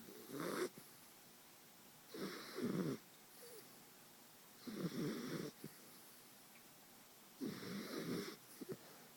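Miniature Schnauzer snoring while asleep: four snores, spaced about two and a half seconds apart.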